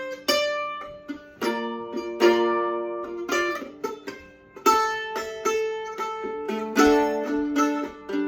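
Solo banjo played instrumentally: a run of plucked single notes and chords that ring and die away.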